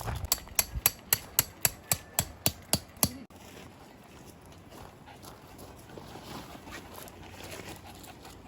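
A quick, even series of about a dozen sharp knocks, roughly four a second, that stops abruptly after about three seconds, leaving only faint background.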